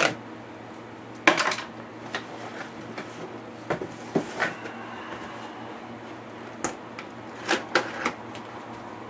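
Cardboard packaging being handled as items are lifted out of a box: a run of short knocks, scrapes and rustles, with several quick knocks close together near the end, over a steady low hum.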